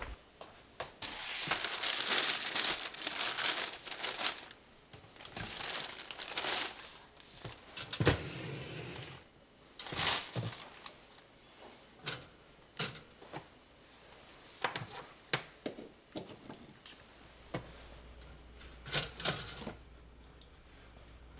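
Plastic packaging crinkling for a few seconds, then a series of sharp clicks and knocks of a pop-up toaster being handled at the kitchen counter.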